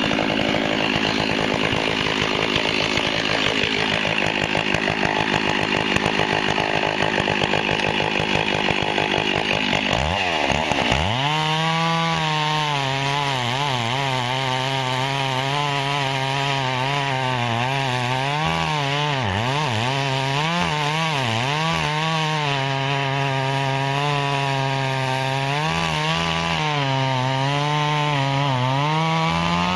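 Stihl 064 two-stroke chainsaw running at high revs while cutting through wood. About ten seconds in, the rough, noisy sound gives way to a clearer engine note that rises and dips repeatedly as the saw is loaded in the cut.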